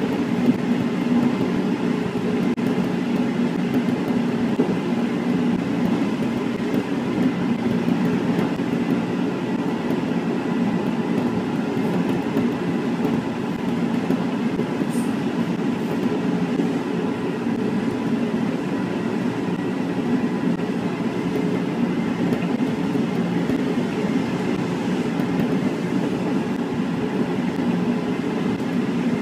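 Nankai electric commuter train running at about 75–80 km/h, heard from inside the driver's cab. There is a steady rumble of wheels on the track, with a faint high steady whine.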